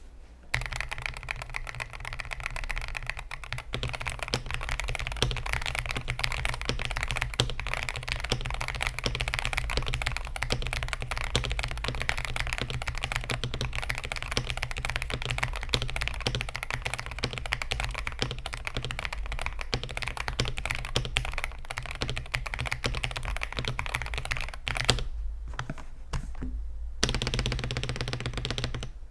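Fast, continuous typing on a Yunzii RT80 mechanical keyboard with Gateron Magnetic White linear switches, a polycarbonate plate and PBT Cherry-profile keycaps: a dense run of key clacks that stops for about two seconds near the end and then resumes.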